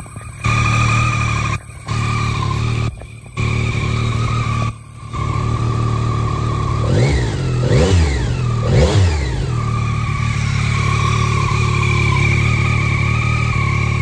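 2023 Yamaha MT-09's 890 cc inline three-cylinder engine idling in neutral, blipped three times in quick succession about halfway through, each rev rising and falling back to idle. The sound drops out briefly several times in the first five seconds.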